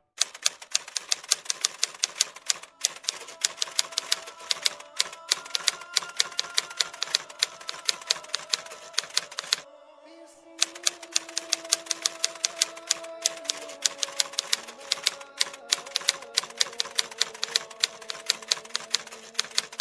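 Typing sound effect: rapid key clicks, several a second, over soft sustained background music. The clicks stop for about a second near the middle, then start again.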